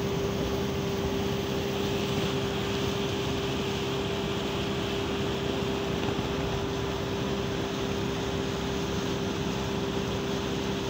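Motorboat engine running at a steady pitch while under way, over a constant rush of wind and water.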